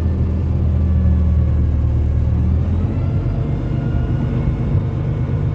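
Dump truck's diesel engine running under power take-off load, driving the hydraulic hoist as the dump bed raises; the engine note steps up higher about two and a half seconds in.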